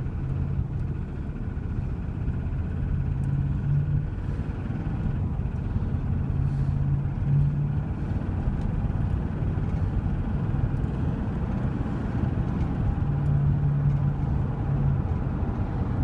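1999 GMC Suburban's 5.7 Vortec V8 running under acceleration while still cold, with an engine tick still audible. The owner suspects a lifter but has not ruled out a rod; the tick softens as the engine warms.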